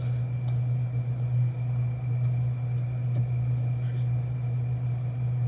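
Steady low hum, with a few faint light clicks of small objects being handled.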